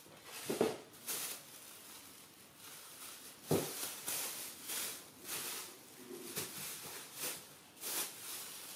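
Pig-tailed macaque gnawing kernels off a corn cob: a string of short crunches about twice a second, with two louder knocks about half a second and three and a half seconds in.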